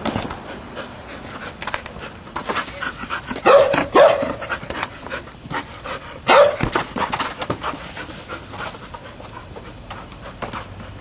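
Entlebucher mountain dog panting and giving three short barks, two in quick succession about three and a half seconds in and one a little after six seconds, with many small ticks and scuffs throughout.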